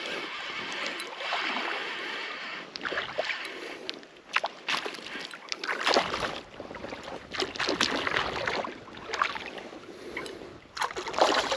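Water sloshing and splashing in uneven surges, with scattered clicks and knocks.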